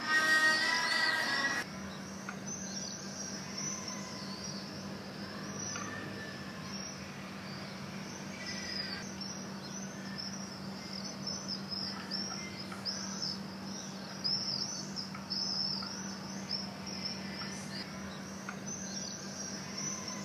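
Music stops about a second and a half in; after that, many small birds chirp in quick, high calls over a steady low hum.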